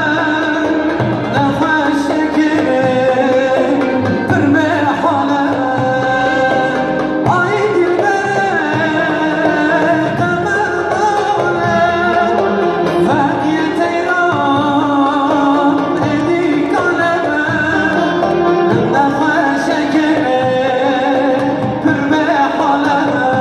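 A man singing a Kurdish dengbêj-style folk song into a microphone, amplified through stage loudspeakers, accompanied by bağlama (long-necked saz lutes). The singing and playing carry on without a break.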